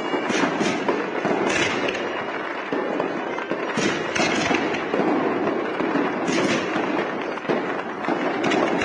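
Dense, layered sound collage of crackling and sharp bangs, like fireworks, over a thick wash of noise. The cracks come in clusters a few seconds apart.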